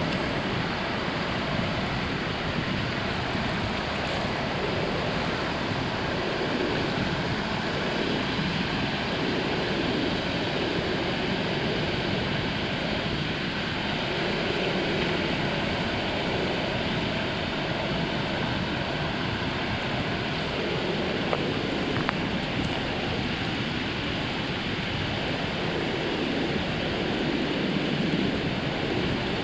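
Ocean surf breaking and washing onto a beach: a continuous, even rush of water noise with no single crash standing out.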